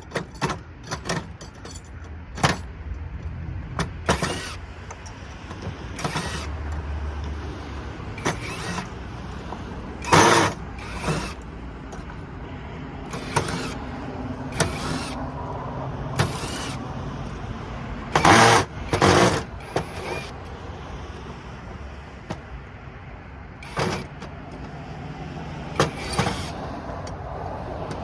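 Irregular clicks, knocks and short scraping bursts of hand tools working on scrap parts, over a low steady hum; the loudest bursts come about ten seconds in and again twice near nineteen seconds.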